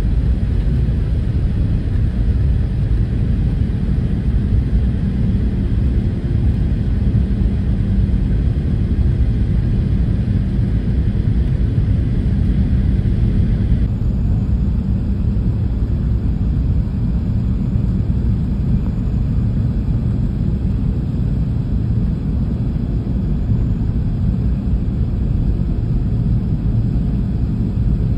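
Steady low rumble of jet engines and airflow heard inside the cabin of an Airbus A380 climbing out at low altitude.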